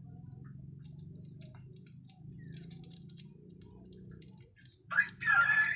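Light clicks and crinkles of oyster mushroom clusters being snapped off plastic grow bags, over a low steady hum. Near the end a rooster starts crowing loudly.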